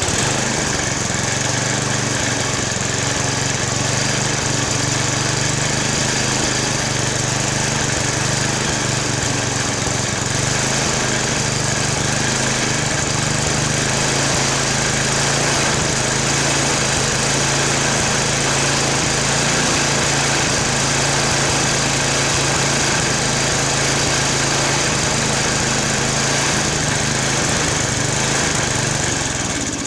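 Snowblower's small single-cylinder gasoline engine running steadily at speed while its governor is being adjusted, after it had revved far too high with the governor's maximum-speed screw cranked in. The engine sound drops off near the end.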